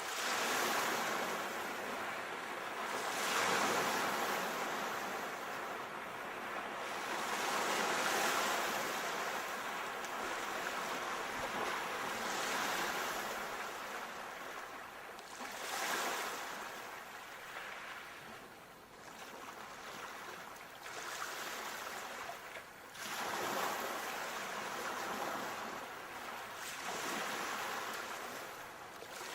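Sea waves breaking on a shore, a hissing wash that swells and ebbs about every four seconds, with a little wind.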